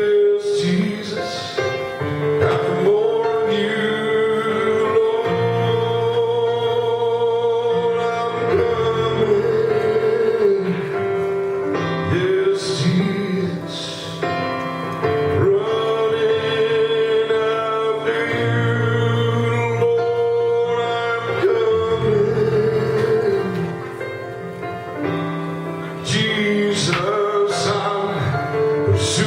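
Gospel worship music with a man singing over a backing track.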